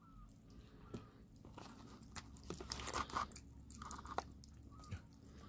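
Kittens chewing and biting raw liver: a run of short, irregular eating clicks, busiest about halfway through.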